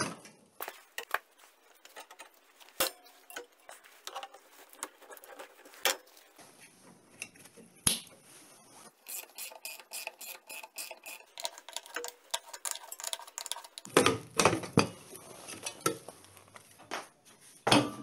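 Scattered metallic clicks, clinks and scrapes of a hand driver working the mounting bolts of an old refrigerator compressor, with a few louder knocks near the end.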